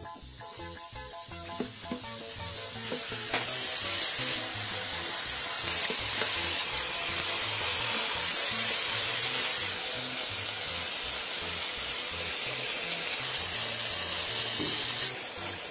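Seafood and mushrooms sizzling on a hot griddle pan. The hiss builds over the first few seconds, is loudest in the middle, and eases a little after about ten seconds, over background music.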